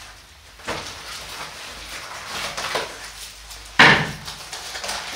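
Objects being handled by hand: rustling and scraping, with one sharp knock a little under four seconds in.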